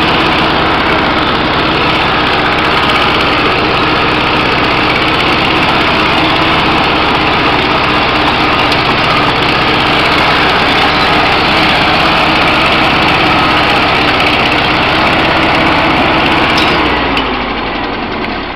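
1956 Farmall Cub tractor's four-cylinder flathead engine running steadily as the tractor is driven. Near the end the engine slows, dropping in pitch and quickly fading.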